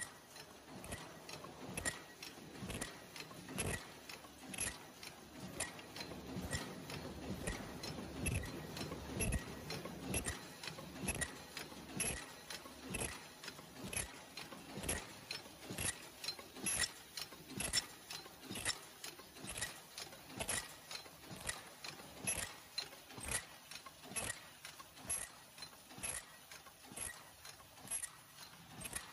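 Automatic paper cup forming machine running, its indexing turret and forming mechanism clacking in a steady, rapid rhythm of sharp knocks. A low motor hum swells under the clacking for a few seconds about a third of the way in.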